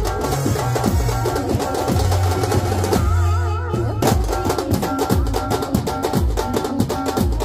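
Processional band drums, large double-headed bass drums and side drums struck with sticks, beating a fast, dense rhythm with a melody line over it. About three seconds in the drumming drops out for about a second while a wavering held note sounds, then the drums come back in.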